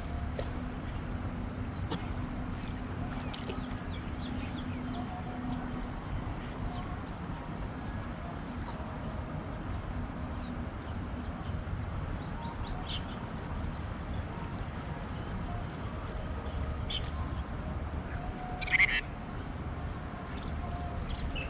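Riverside ambience: a steady low background rumble with birds calling, one repeating a rapid, even high chirp for much of the time, and a short, louder call near the end.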